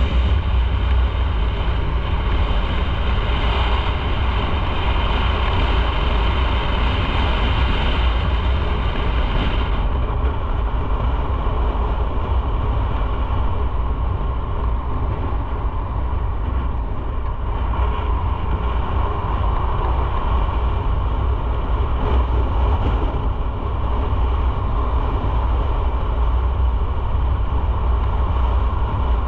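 Motorcycle under way: engine and road noise in a continuous low rumble, with the higher hiss dropping away about ten seconds in.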